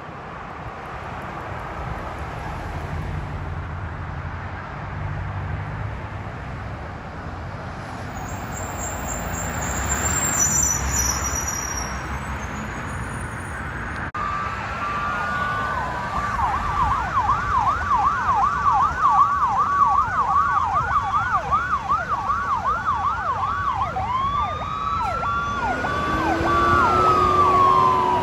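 Emergency vehicle with a Federal Signal PowerCall electronic siren. Road noise builds through the first half, then about halfway the siren starts with a steady tone and a fast yelp, about three rising-and-falling sweeps a second. Near the end it changes to a slower wail.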